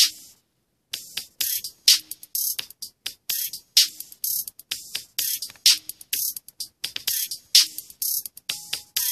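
Hip-hop style electronic music with a drum-machine beat, played as a sound demo through Zipbuds JUICED 2.0 earbuds. After a brief gap near the start, the beat runs as crisp, evenly paced hits with little bass, and a short synth figure joins near the end.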